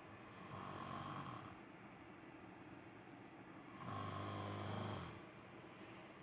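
A man snoring in his sleep: two long snores about three and a half seconds apart, the second louder, followed by a faint breathy hiss.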